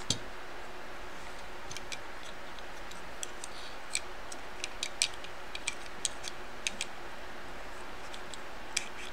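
Small metal hand tools clicking and tapping irregularly against an iPhone logic board's metal shield as it is worked loose, about fifteen sharp ticks clustered in the middle and near the end, over a steady hiss.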